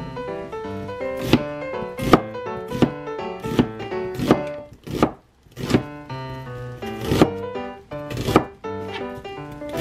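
Kitchen knife slicing an onion on a cutting board, each cut ending in a sharp knock on the board, about one cut every three-quarters of a second, over background music.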